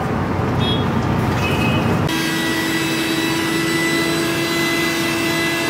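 Steady mechanical background noise of a working kitchen: a low rumble that changes abruptly about two seconds in to an even hiss with a steady hum.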